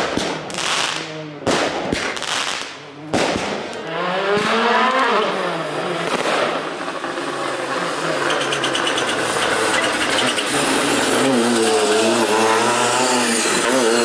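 Fireworks going off, three sharp bangs in the first three seconds or so. Then a World Rally Car's turbocharged engine comes in loud, revving up and down through the gears as the car passes at full attack.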